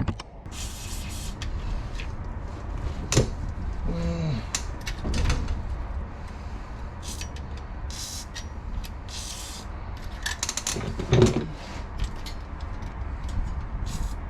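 Several short hissing bursts of a WD-40 aerosol spray being sprayed onto the differential bolts, with clinks and knocks of tools against metal, over a low steady rumble.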